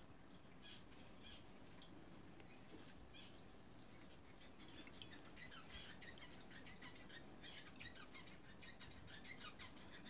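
Cockatiel bathing in a shallow dish of water: a faint patter of small splashes and wing flutters, getting busier about halfway through.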